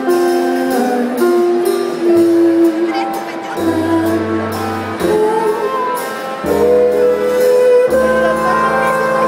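Big band playing live: long held chords, with low bass notes changing every second or two.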